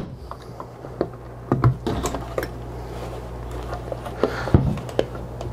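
Scattered small clicks and knocks of a vintage leather-covered folding camera being handled, fingers working at its catches and the body knocking lightly on a plastic table.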